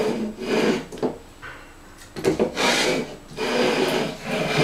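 Beer cans in black sleeves being slid and shuffled across a table top: several rough scraping strokes, each about a second long.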